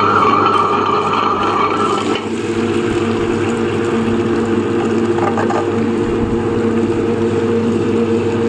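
Table-top wet grinder running, its motor humming steadily as the stone rollers grind soaked urad dal into batter. A higher-pitched whine fades out about two seconds in.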